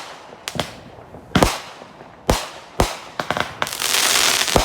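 Consumer fireworks going off: a run of sharp bangs, irregularly spaced about half a second to a second apart, then, near the end, a continuous loud crackling hiss with more bangs over it.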